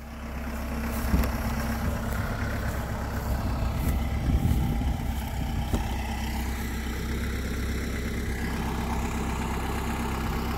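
Compact tractor engine running steadily at a low idle, with a couple of faint knocks.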